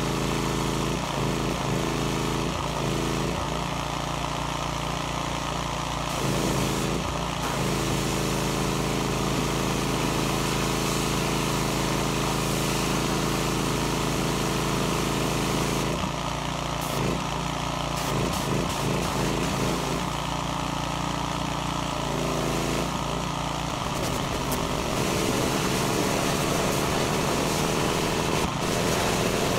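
Pressure washer's small engine running steadily under the hiss of its high-pressure water spray striking the mud-caked plastic body of an ATV. The engine's note shifts several times.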